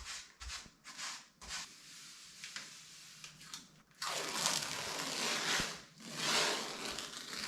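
Freshly grouted wall tiles being scrubbed and wiped: a few short, quick strokes at first, then two longer, louder wipes across the tile surface in the second half.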